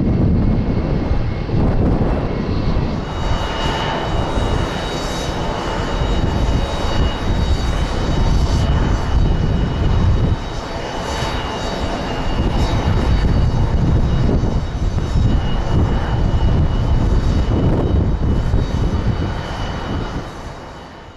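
Boeing 747 jet engines running, a steady heavy rumble with a high whine laid over it. The sound drops a little about halfway through and fades out at the end.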